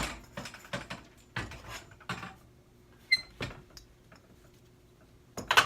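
Metal knocks, clicks and scrapes as a garage door's cable drum is worked along the torsion shaft and slid off, with a brief metallic ring about three seconds in and a cluster of louder clanks near the end.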